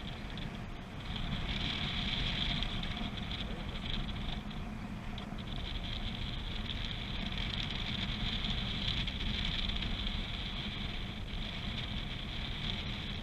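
Airflow rushing over the camera of a paraglider in flight: a steady hiss with a low rumble.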